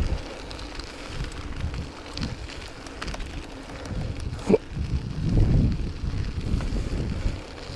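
Wind buffeting the microphone over the low rumble of a mountain bike rolling along. There is one brief sharp sound about four and a half seconds in.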